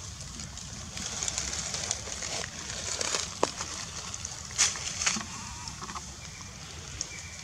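Dry leaf litter rustling and crackling in short, scattered bursts as the macaques shift about on it, over a steady high outdoor hiss.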